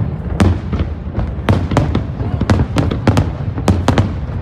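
Aerial fireworks shells bursting in a rapid, irregular string of sharp bangs, about a dozen in the span, over a continuous low rumble.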